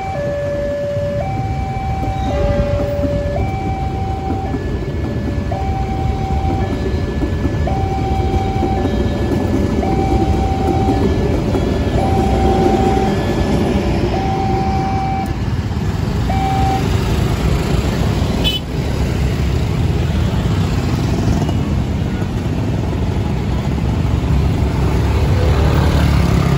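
Railway level-crossing warning alarm sounding two alternating tones, each held about a second, over the steady rumble of waiting motorbike and car engines. The alarm stops about 17 seconds in, the sign that the crossing is clearing, and the traffic noise carries on as the vehicles move off.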